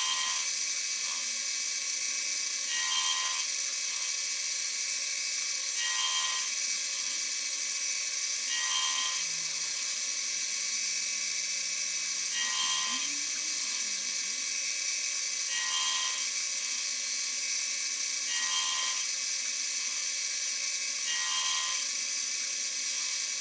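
Harbor Freight mini-mill running steadily, with a short grinding burst about every three seconds as the gear cutter bites into the brass blank for each tooth of an 80-tooth spur gear, eight cuts in all.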